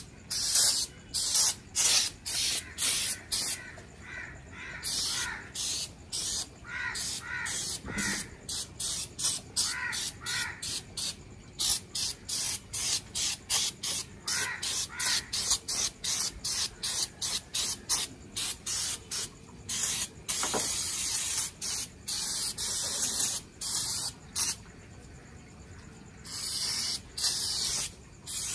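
Hand-held sprayer squirting foaming cleaner over a car's engine bay: short hissing squirts in quick succession, about two a second, broken by a few longer sprays.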